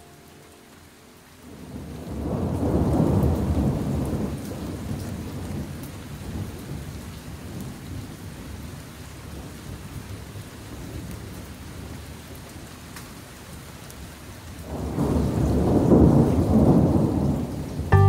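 Recorded rain-and-thunder effect: steady rain with two long rolls of thunder, one swelling up about two seconds in and one near the end.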